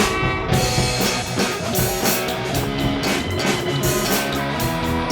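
Rock background music with electric guitar and a steady drum-kit beat.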